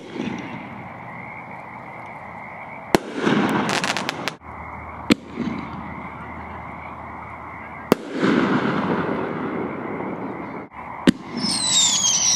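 Aerial ball shells bursting: about five sharp bangs a few seconds apart, each trailing off in a rumbling echo, with a short run of crackles after one of them. Near the end, several high whistles fall in pitch.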